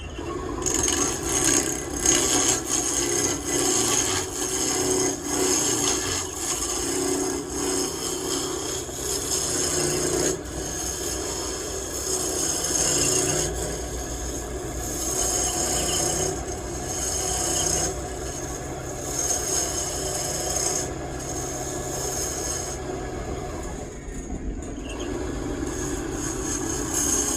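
Wood lathe spinning a wooden blank while a turning tool cuts it: a continuous scraping over the machine's steady hum, easing off briefly a couple of times.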